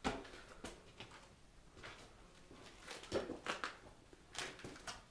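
Faint, irregular knocks and scuffs, about a dozen with the strongest about three seconds in: footsteps and shuffling on a gritty concrete basement floor.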